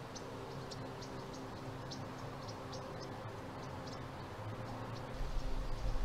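Outdoor ambience of insects making short, high-pitched ticks a few times a second over a low steady hum. A deeper rumble comes in about five seconds in.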